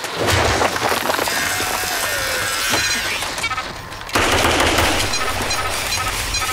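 Gunfire from an AK-pattern rifle, shots in quick succession, becoming loud and dense suddenly about four seconds in.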